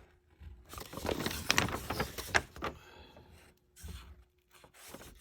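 Paper rustling and crinkling in bursts as a plastic model kit's instruction sheet is handled and unfolded, with small scrapes and clicks, busiest in the first half.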